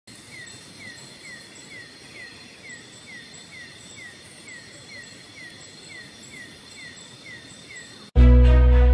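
Tropical forest insects at night: a steady high-pitched drone with a short falling chirp repeating a little over twice a second. Near the end the ambience cuts off and loud music starts abruptly.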